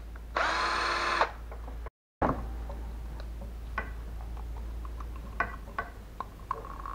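Cordless drill-driver runs for about a second at a steady whine, backing out the screw that holds a plastic mains plug together. After a short break come a few light plastic clicks and taps as the plug housing is pried apart by hand.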